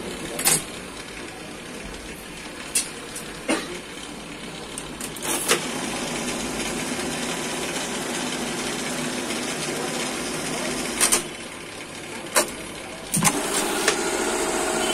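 Steady hum of sewing machinery, broken by several sharp clicks and taps. Near the end a louder, steady pitched hum with a fine buzz sets in.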